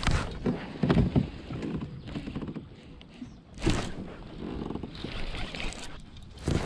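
Handling noise in a plastic fishing kayak: several hard knocks and thumps of rod, reel and gear against the hull, the loudest at the start and about a second in, with a baitcasting reel being cranked between them.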